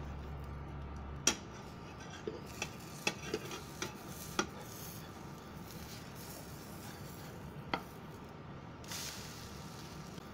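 A cooking spoon knocking and scraping against a nonstick frying pan while an egg omelette is turned and pressed, over a faint steady sizzle of frying. There is one sharp knock about a second in, then a quick run of lighter taps over the next few seconds, and one more tap near the end.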